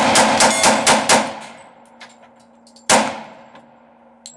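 Glock 27 .40-calibre compact pistol fired in a fast string of about six shots in just over a second, then one last shot about three seconds in, emptying the magazine. Faint clangs of steel targets being hit sound between the shots.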